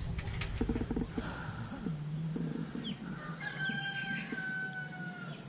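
A rooster crowing about three and a half seconds in: one long call that falls slightly in pitch.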